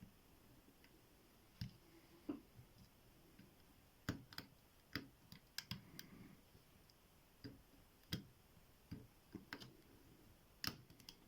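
Faint, irregular metallic clicks of a hook pick and tension wrench working the pin tumblers inside an ABUS T65AL/40 brass padlock.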